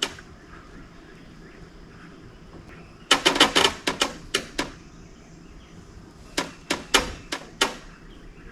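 A quick run of sharp knocks and clicks about three seconds in, then a few more spaced knocks later on, over a low steady background.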